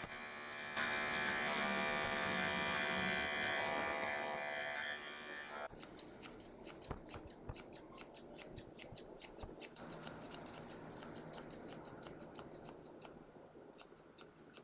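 Pet grooming clipper buzzing steadily as it shaves the hair between a miniature schnauzer's paw pads, stopping about five seconds in. Then grooming scissors snip in a long, quick series of short cuts, trimming the hair around the feet.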